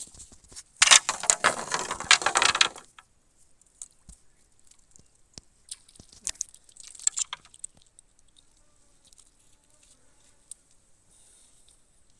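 Close crackling and rustling for about two seconds, then scattered clicks and a shorter burst of the same crackling a few seconds later.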